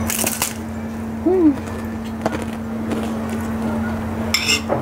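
Eating sounds close to a clip-on microphone: chewing, with a spoon scraping and clinking in a porcelain rice bowl near the end and a short hummed 'mm' from the eater about a second and a half in. A steady low hum runs underneath.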